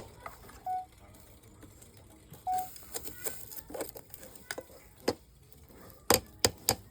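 Hammer blows on iron at an anvil: a few scattered strikes, then a quick run of blows about five a second near the end.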